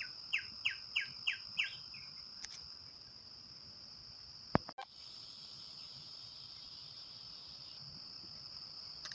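Steady high-pitched insect trill of dawn forest insects, with a bird giving a run of about six quick falling chirps in the first two seconds. A single sharp knock about four and a half seconds in.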